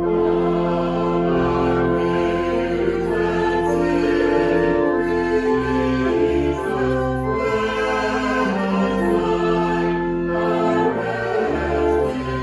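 Slow choral music: voices singing long held chords that change every couple of seconds.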